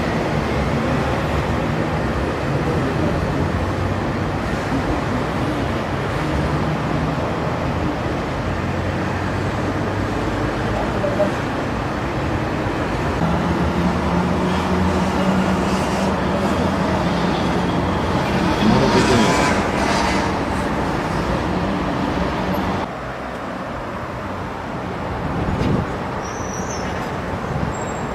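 Steady background rumble of road traffic with a low hum. It swells louder about two-thirds of the way through, then drops a little quieter about 23 seconds in.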